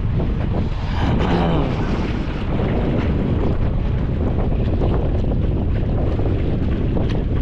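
Strong wind buffeting the microphone, a steady low rumble, with the sea around the jetty heard faintly beneath it.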